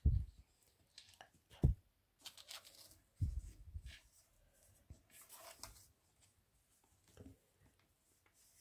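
Cardstock box handled and pressed on a tabletop: a few dull knocks and short bursts of paper rustling as a hand presses its freshly glued base flat.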